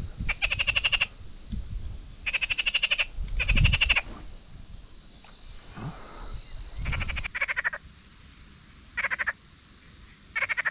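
Frogs calling from the reedy shallows: about seven short, fast-rattling croaks, some in quick pairs, spaced a second or two apart. Low rumbles of wind on the microphone come and go underneath.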